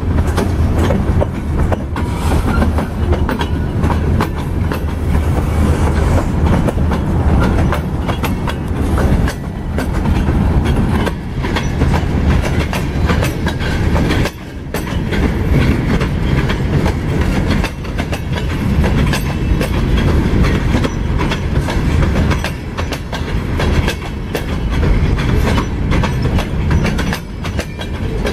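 Freight train's boxcars rolling past close by: a steady heavy rumble of steel wheels on rail, with a rapid clickety-clack of wheel sets over the rail joints.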